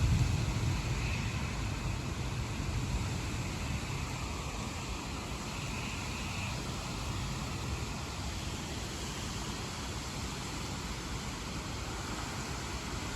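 Steady hiss of moderate rain and wind during a thunderstorm. A low rumble at the start fades away over the first few seconds.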